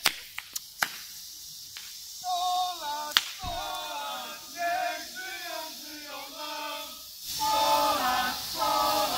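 A group of voices singing a chant together, starting about two seconds in, after a few sharp bangs in the first second and with one more about three seconds in. From about seven seconds in, the hiss of burning hand flares joins and the singing grows louder.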